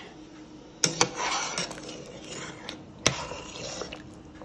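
Pieces of oxtail going into a steel pot of boiling red peas: sharp clinks and splashes about a second in and again about three seconds in, over the steady bubbling of the pot.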